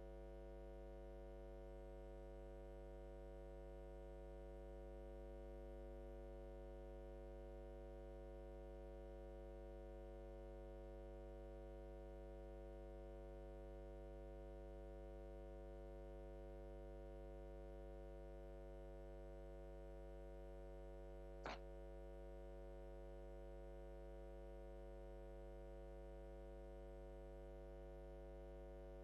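Faint steady electrical hum, with a single short click about three-quarters of the way through.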